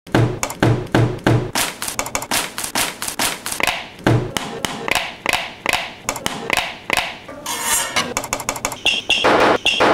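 Fingers tapping and knocking on a hardcover book cover in a quick rhythm: four heavier thumps at the start, then a fast run of lighter taps. Near the end come rougher scuffing sounds of shoes on a wooden stair step.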